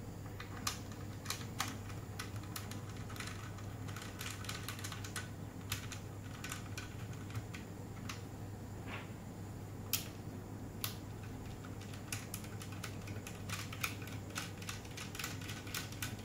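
Irregular small clicks and taps of metal hex screws being turned by hand into a weather sensor's base, fixing it to its mounting flange, over a steady low hum.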